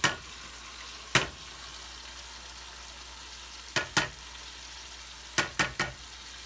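Mutton chops in masala sizzling steadily in a frying pan. Utensils knock sharply against the pans as the last of the masala is scraped out of a steel pot into it: single knocks at the start and about a second in, two just before the middle of the back half, and three in quick succession near the end.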